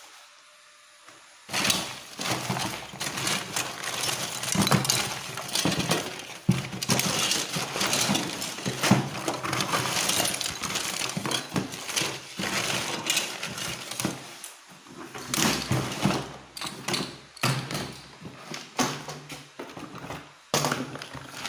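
Rummaging through a cardboard box of electrical fittings: plastic bags crinkling, cardboard rustling and small loose parts clinking and clattering, starting about a second and a half in and going on in a steady jumble of small knocks.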